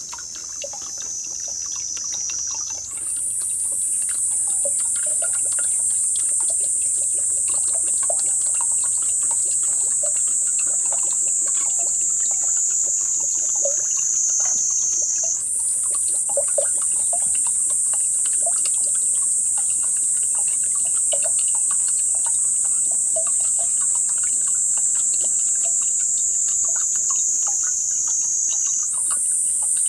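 A steady, loud, high-pitched insect drone jumps in pitch a few times. Beneath it, aged vinegar trickles from a bottle into a large glass of liquid, with small scattered splashes and drips.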